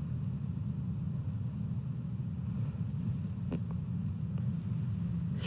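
Steady low background rumble with no speech, and a faint tick about three and a half seconds in.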